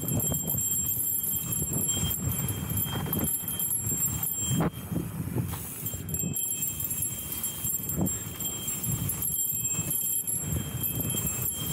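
2013 Specialized S-Works Enduro 26 mountain bike riding a dirt trail: tyres rumbling over the ground and the bike rattling and knocking over bumps. High thin tones come and go throughout.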